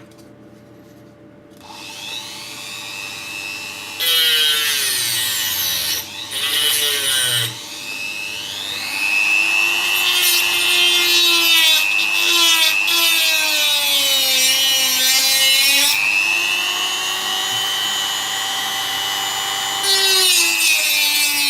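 Handheld rotary tool (mini drill) spinning up, then its cutting attachment sawing through a piece of ruler in several stretches of loud rasping. The motor's whine drops in pitch while it is under load and rises again when the cut eases.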